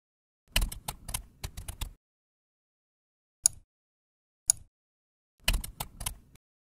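Typing on a computer keyboard: a quick run of keystrokes lasting about a second and a half, two single clicks, then another short run of keystrokes near the end.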